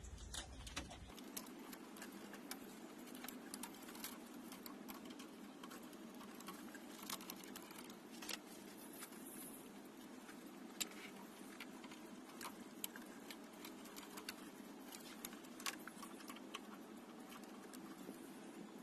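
Faint handling noise of communication cables and their plugs being worked by hand: scattered small clicks and light rattles over a faint steady hiss.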